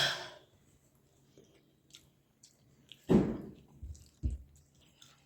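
A person chewing a mouthful of food, with wet mouth sounds. A few short, louder mouth noises come about three seconds in and twice more just after.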